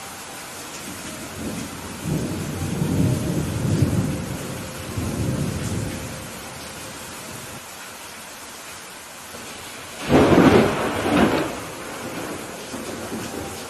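Steady rain falling in a thunderstorm. A low rolling rumble of thunder swells from about two seconds in and fades by six, then a sudden loud, sharper thunderclap comes near ten seconds in and rolls off over a second or so.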